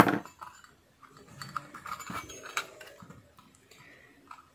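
Clicks and knocks from an amplifier circuit board and its aluminium heatsink case being handled and fitted together: a sharp click at the start, then a cluster of lighter knocks about one and a half to two and a half seconds in.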